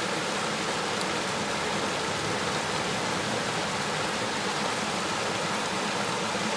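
River water flowing over rocks: a steady, even rush of water.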